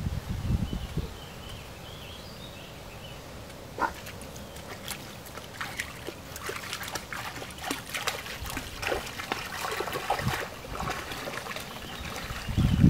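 Water splashing and trickling irregularly, starting about four seconds in and thinning out near the end, with low dull thumps near the start and the end.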